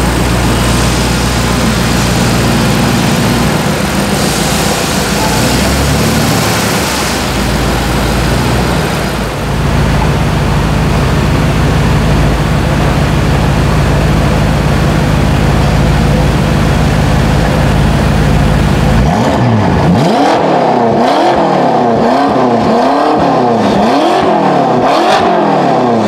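Twin-turbo V8 of a PP Performance-tuned BMW M5 F10 with an Akrapovic exhaust, running loud and steady, then blipped up and down repeatedly, about once a second, over the last several seconds.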